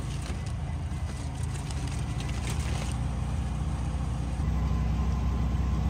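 Vehicle engine running steadily while driving over a snowy trail, heard from inside the cab as a low hum with light rattles and clicks in the first few seconds. It gets louder about four and a half seconds in.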